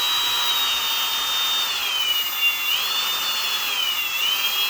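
Electric drill running with a 23/64 bit, drilling a hole. Its motor whine drops in pitch twice, about two seconds in and again near the end, as the bit bites and loads it. The bit is cutting poorly, probably because its tip is dulled from earlier use.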